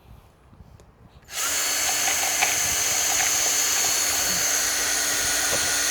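Power drill boring a pilot hole in a wooden garage door, starting about a second and a half in and running at a steady speed. The drill is stuck in reverse, so the bit is turning backwards in the wood.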